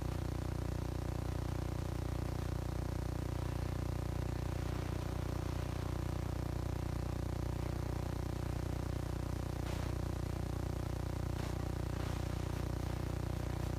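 A steady, unchanging low hum, with a couple of faint clicks near the end.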